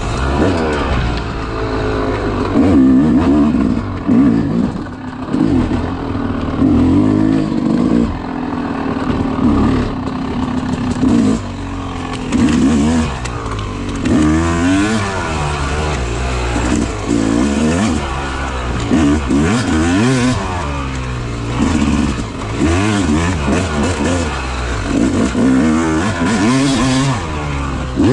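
Yamaha YZ250 two-stroke dirt bike engine being ridden hard on a tight trail. It revs up and drops back again and again, with the pitch rising and falling every second or two.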